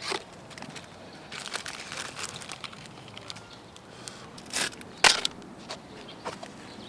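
A cardboard Marlboro cigarette pack and the cigarettes inside being crushed and crumpled in leather-gloved hands, crackling and crinkling, then two sharper crunches a little past halfway as the broken cigarettes are trodden on the pavement.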